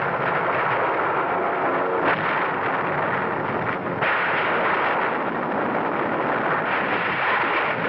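Dense battle sound effects from an old war-film soundtrack: a continuous din of gunfire and explosions. The mix shifts abruptly about two and four seconds in.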